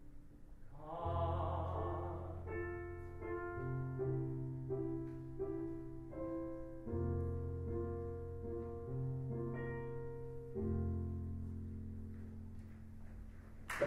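Solo piano accompaniment playing the closing bars of a musical-theatre ballad: a singer's held note with vibrato ends about two seconds in, then the piano plays slow chords over deep bass notes that thin out and fade. Applause breaks out right at the very end.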